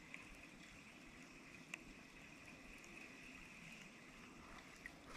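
Near silence: faint riverside ambience with a steady high-pitched hum and a few soft ticks.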